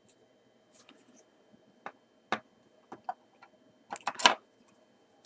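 Small clicks and taps of metal tweezers and parts against a Kiev-17 camera body under repair, a few isolated ticks and then a louder cluster of knocks about four seconds in as the camera body is handled.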